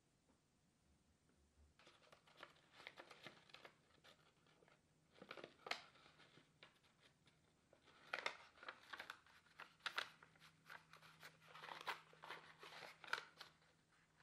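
Faint rustling and crinkling of paper handled around a short rubber fuel filler hose, starting about two seconds in and coming in short, irregular bursts with small clicks.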